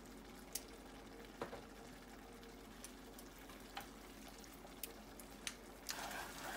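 Faint scattered ticks and pops from a pan of thick, simmering tomato chutney as lemon juice is squeezed into it. Near the end, a wooden spatula starts stirring and scraping the chutney in the pan.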